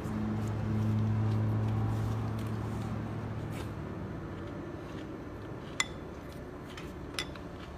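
A low hum that fades away over the first few seconds, then two light clinks of a spoon against a dish, one about six seconds in and one near the end.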